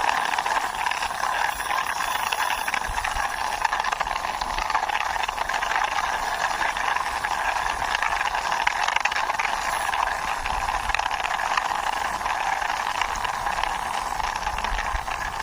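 Plastic wheels of a hand-pushed toy police jeep rolling along a wall surface, a steady rattling hiss with no breaks.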